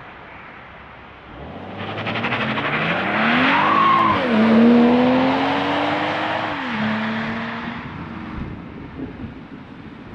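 BMW M340i's turbocharged 3.0-litre straight-six driving past under acceleration. It revs up, drops in pitch at a gear change about four seconds in, pulls on at a steady note, then falls away in pitch and fades as the car goes by.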